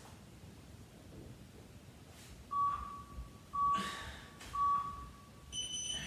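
Workout interval timer counting down: three beeps at one pitch, about a second apart, then a higher beep marking the end of the interval.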